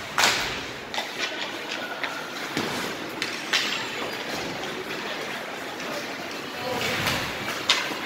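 Ice hockey play: skates scraping and carving the ice under steady rink noise, with sharp clacks of sticks and puck, the loudest just after the start and a few more scattered through.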